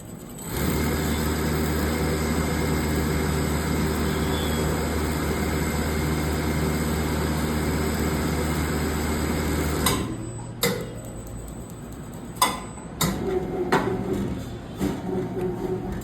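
Automatic CNC stator winding machine running steadily, its motor humming as it winds aluminium wire into a 12-slot stator. About ten seconds in the hum stops, and a few sharp mechanical clicks and knocks follow.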